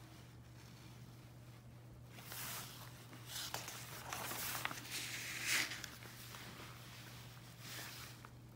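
Book pages being turned by hand: paper rustling and sliding in several brushes, loudest about five and a half seconds in.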